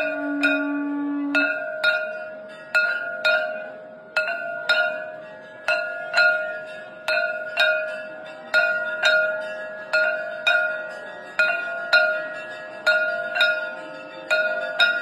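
A hand-held brass gong (jhalar) is struck with a stick at a steady beat of about two strokes a second, and each stroke rings on. A conch shell (shankh) holds one steady blown note that stops about a second and a half in.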